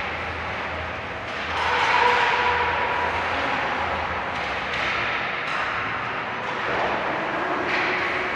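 Ice hockey play in a rink: a steady wash of skating and arena noise with several sharp scrapes and knocks of skates, sticks and puck.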